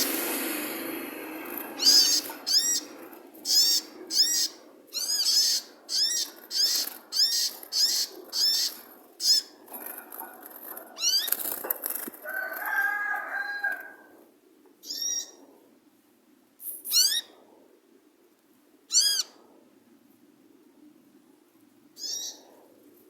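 A songbird calling a rapid series of short, sharp, high-pitched notes, roughly one or two a second, that thin out to a few spaced notes in the second half; a lower, different call sounds about halfway through.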